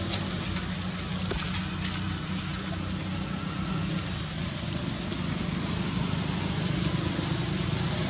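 Steady low background rumble with an even hiss over it and a few faint ticks.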